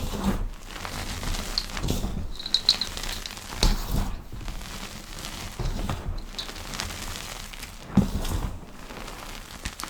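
Soft powder being crushed and pressed, giving a run of soft, crisp crackles with a few louder dull thumps at irregular moments.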